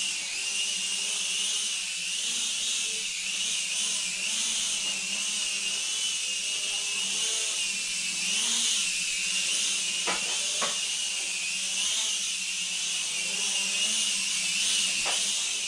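Mini quadcopter drone's motors and propellers whining in flight, the pitch wavering up and down as the throttle changes.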